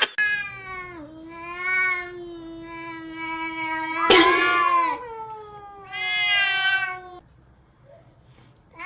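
Cat yowling in long drawn-out meows. One call runs on for several seconds, with a harsher, louder stretch in the middle. After a short pause another long call starts near the end.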